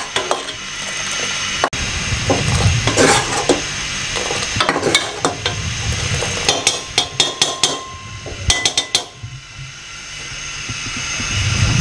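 Long metal ladle stirring milk and pheniyan in an aluminium saucepan, clinking and scraping against the pan in repeated bursts, with milk splashing as it is ladled up and poured back.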